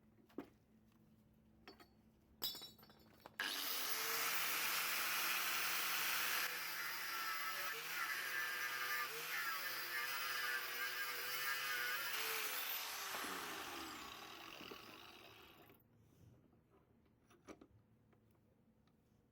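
Electric grinder switched on with a brief blip, then running steadily for about ten seconds and winding down after it is switched off, its pitch falling as it slows. A few light clicks come before it.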